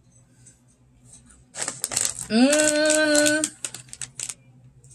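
A woman hums a closed-mouth "mmm" while chewing chocolate-covered berries, a note that rises and then holds steady for about a second, just after a brief burst of rustling. Scattered small clicks come before and after it.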